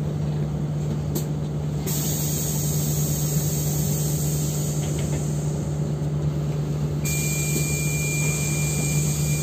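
Steady low engine hum from inside a city bus, with a hiss that sets in about two seconds in and a thin high tone joining in the last couple of seconds.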